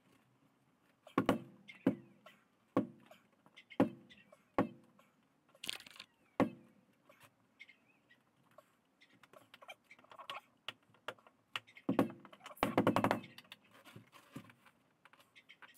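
Hands tapping and thumping on a side window glass of a 1962 VW bus to seat it into its rubber seal. About a second apart at first, then a quick run of knocks near the end.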